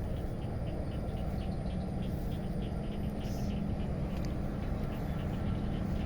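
Steady low outdoor rumble with a regular train of short, high chirps, about two or three a second, from a calling insect or frog.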